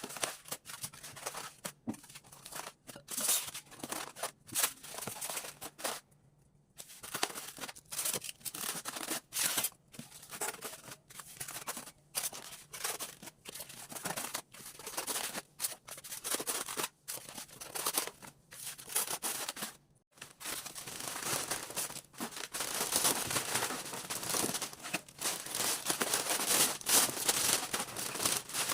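Plastic packaging crinkling and rustling as it is handled, in irregular crackly bursts, with a pause about six seconds in.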